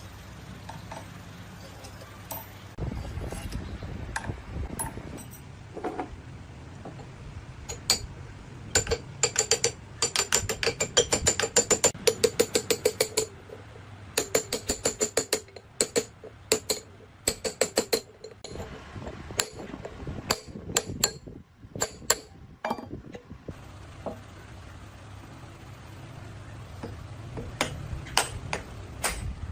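Hammer striking metal in runs of quick ringing blows, about five a second, through the middle stretch, with scattered single knocks before and after.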